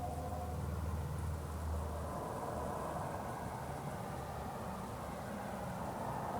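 Unexplained steady low droning hum with a rumbling, hissing wash of noise over it, the kind of strange sound reported as lasting about half an hour.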